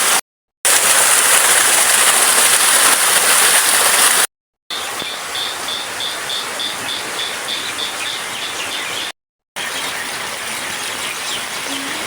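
Steady rain and rushing water, a loud even hiss that drops in level after a short cut about four seconds in. In the middle stretch a faint high chirp repeats about three times a second.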